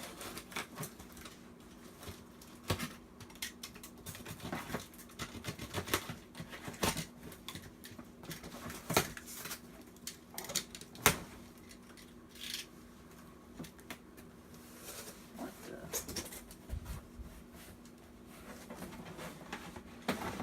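Utility knife slicing packing tape and cardboard on a shipping box, with irregular scrapes, crackles and sharp clicks as the box is cut and worked open. The sharpest clicks come about 9 and 11 seconds in.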